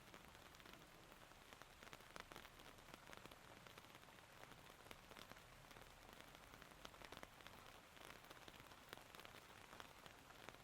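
Rain falling steadily and faintly, with many separate drops ticking close by.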